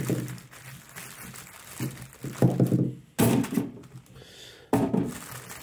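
Whole baby potatoes dropped one after another into the Cosori TwinFry air fryer's basket, each landing with a dull thud: several uneven knocks about a second apart.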